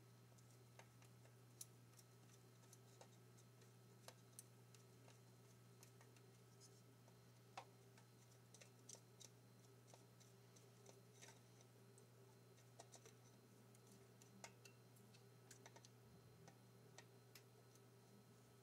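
Near silence: faint, irregular small clicks of parts being handled and fitted on a chainsaw engine by hand, over a steady low hum.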